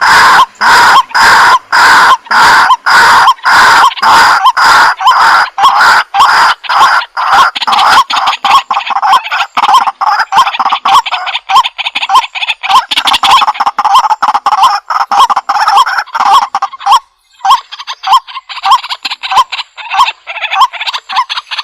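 White-breasted waterhen calling: loud, repeated croaking notes, about two a second at first, then quickening into faster, more ragged notes from about seven seconds in, with a brief break near the end.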